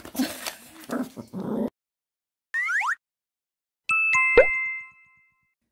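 Cartoon intro sound effects: a quick upward swoosh, then two bright chime dings, the second a little lower, with a rising pop, ringing out for about a second. Before them comes a short burst of scuffling with brief vocal sounds.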